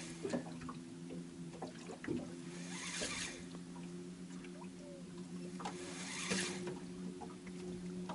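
Choppy river water lapping and splashing against the side of a boat, with a splashy surge about every three seconds and small knocks in between, over a steady low hum.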